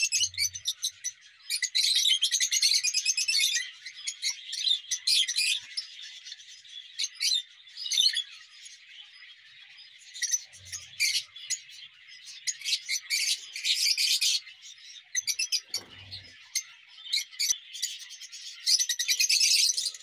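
A flock of lovebirds chirping and chattering with shrill, high-pitched calls, swelling into busier bursts every few seconds.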